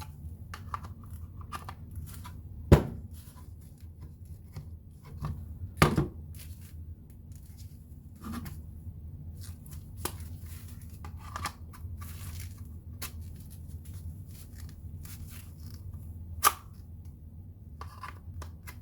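Plastic scraping, clicking and knocking of a battery pack being worked onto the stiff, rough battery shoe of a compact cordless impact wrench, with three sharper knocks, the loudest about three seconds in.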